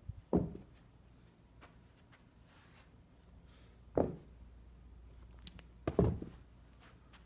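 Three dull thumps of Bengal kittens landing on carpet after leaping at a toy: one just after the start, one about four seconds in and one about six seconds in.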